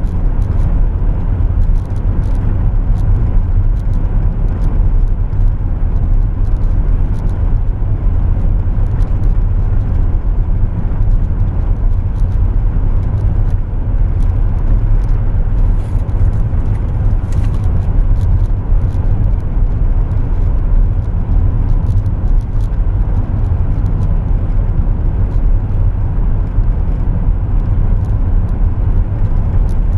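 Steady road noise inside a car's cabin while driving at speed on a highway: an even, heavy low rumble that never lets up.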